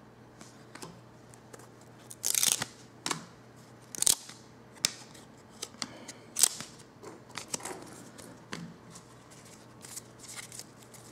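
Glossy hockey trading cards handled by hand, sliding against each other and being peeled apart where they stick together: irregular crisp swishes and snaps, the loudest about two, four and six seconds in.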